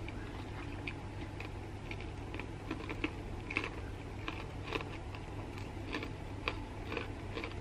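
Close-up eating sounds of a person chewing a mouthful of fried rice: soft, irregular wet clicks and smacks, about two a second, over a steady low hum.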